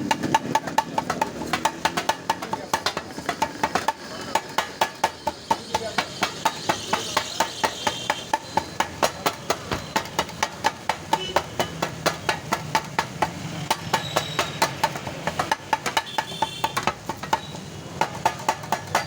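Kothu parotta being chopped on a cast-iron tawa: metal tools strike the griddle in a rapid, even clanging rhythm, with a short break about four seconds in.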